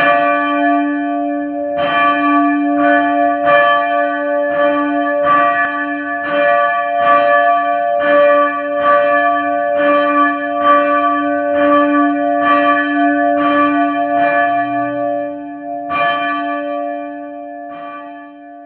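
A single church bell tolling rapidly, about two strokes a second, each stroke ringing on in a long hum. The strokes stop a couple of seconds before the end and the ringing fades out.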